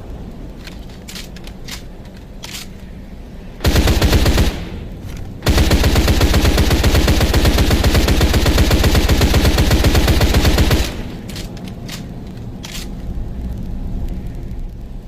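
Thompson submachine gun with a drum magazine firing full-auto: a short burst of under a second, then, after about a second's pause, a long burst of about five seconds.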